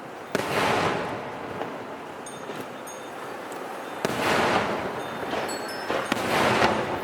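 Aerial fireworks bursting: a sharp bang about a third of a second in, another about four seconds in and two more close together near the end, each followed by a crackling hiss that fades over about a second.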